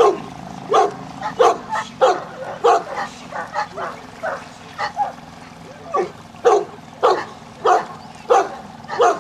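A dog barking over and over, about two short, sharp barks a second, with no let-up.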